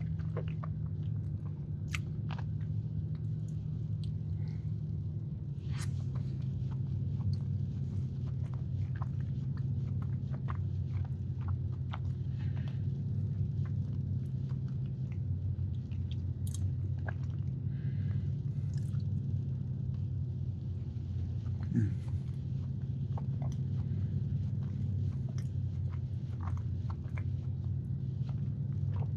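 A person chewing a soft, cakey marshmallow sandwich cookie, with scattered small wet mouth clicks. A steady low hum runs underneath.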